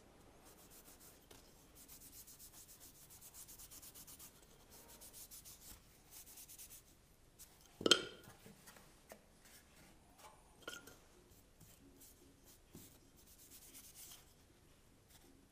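Small cloth rag rubbing Scandinavian oil onto bare wooden pieces in quick back-and-forth strokes, with one sharp knock about eight seconds in and a few lighter taps a little later.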